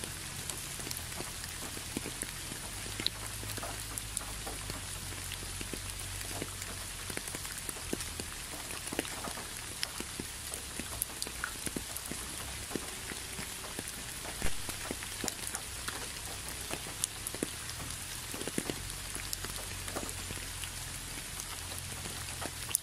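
Steady rain falling on leaves and wet ground: a constant hiss with many separate drops ticking close by, one sharper drop standing out about halfway through.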